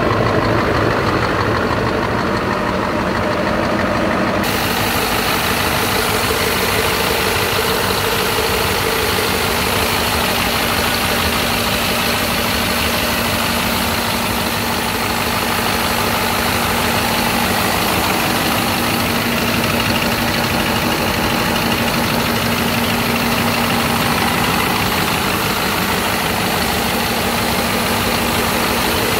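Scania R truck's diesel engine idling steadily. A higher hiss joins the engine sound about four seconds in.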